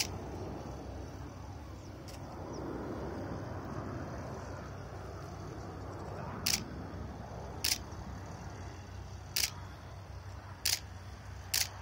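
Nikon D800 DSLR shutter firing single shots: about six short sharp clicks at irregular intervals, most of them in the second half, one to two seconds apart.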